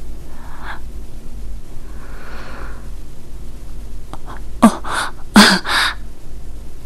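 A person's voice in a few quick gasping breaths clustered about two-thirds of the way in, two of them falling in pitch, over a steady low hum.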